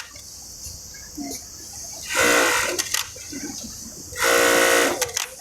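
Industrial single-needle lockstitch sewing machine run in two short bursts, each under a second, with a steady whine and a high rattle while it stitches.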